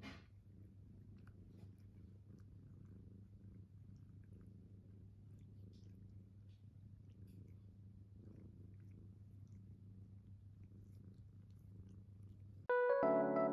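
A domestic cat purring steadily and close by, a low even rumble. Piano music comes in near the end.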